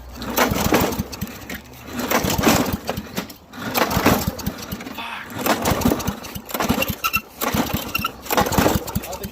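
Straight-piped lawn mower engine, its muffler removed, sputtering and popping in uneven surges about every second and a half, firing without settling into steady running.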